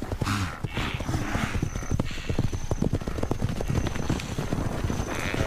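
Wildebeest herd stampeding: a rapid, dense drumming of many hooves as the animals bolt from an attacking lioness.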